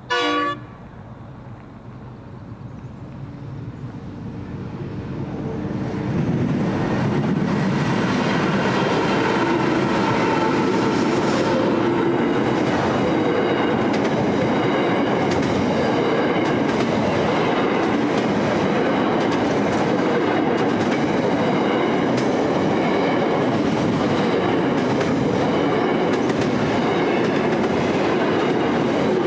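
A short horn blast from a diesel freight train's GE locomotives, then the rumble of the locomotives building as they close in over about six seconds. After that comes the steady rolling clatter of intermodal container wagons over the rails, with a few steady high ringing tones from the wheels.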